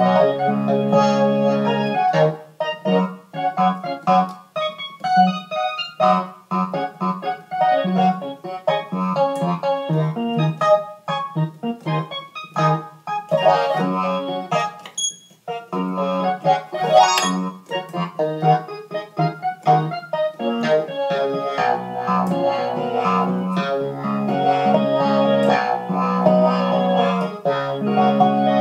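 Organ sound on an electronic keyboard played in a funk style: a low left-hand bass line under chords and short stabbed notes, with a brief break about halfway through.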